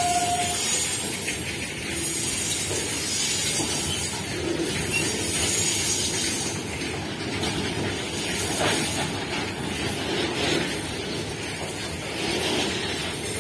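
Loaded steel-coil freight wagons rolling past: a steady noise of steel wheels on rail with a few knocks. A short steady tone stops about half a second in.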